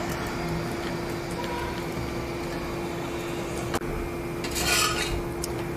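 A spatula scraping and turning bread slices on a hot tawa. There is a sharp tap a little before the end and a short scrape near the end, over a steady low hum.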